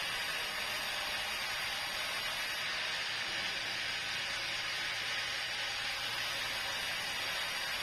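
Sawmill saw running: a steady, even hiss with a faint low hum beneath it.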